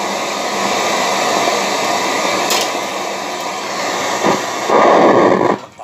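A JVC CRT television's speaker hissing with loud, steady white-noise static from an untuned channel. The hiss swells louder briefly near the end, then cuts off sharply as the set locks onto a station.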